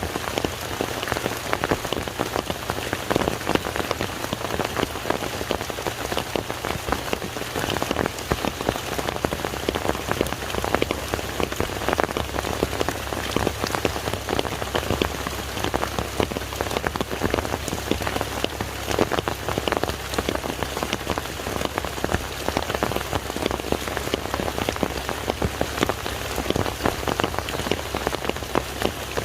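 Steady rain falling on a lake: a dense, even patter of many drops hitting the water.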